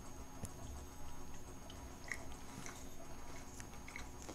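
Faint biting and chewing of soft, freshly baked cookies, with a few small clicks.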